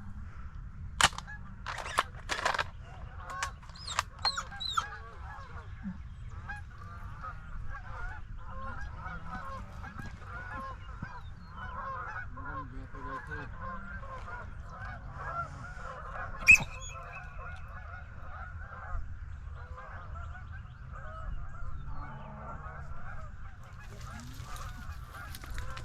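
A flock of geese honking overhead, many calls overlapping without a break, with a few louder, closer honks in the first few seconds. A single sharp loud snap sounds about two-thirds of the way through.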